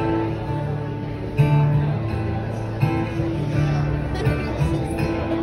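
Acoustic guitar strummed as a song's intro before the vocal comes in, chords ringing with a fresh strum about every second and a half.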